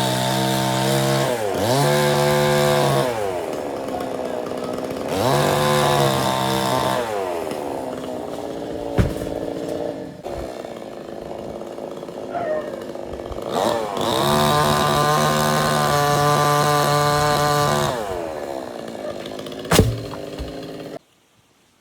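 Two-stroke chainsaw revved to full throttle in four bursts, each time dropping back to a lower, rougher running sound between them. The sound cuts off suddenly near the end.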